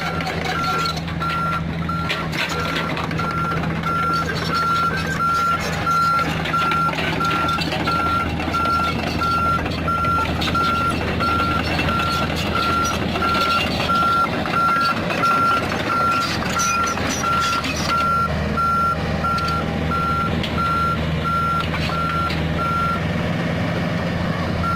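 A reversing alarm beeping steadily at about two beeps a second over a diesel engine running steadily; the beeping stops shortly before the end.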